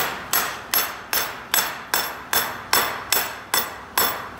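Rubber mallet tapping a trike's rear axle home through its swingarm bearing carrier: a steady run of sharp strikes, about two and a half a second, each with a brief metallic ring.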